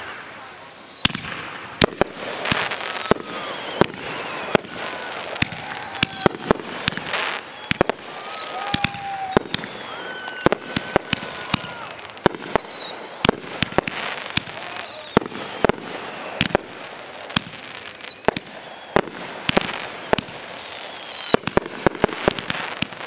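Fireworks finale barrage: a dense, irregular run of sharp bangs from aerial shells launching and bursting, several a second at times. High whistles that fall in pitch sound again and again among the bangs.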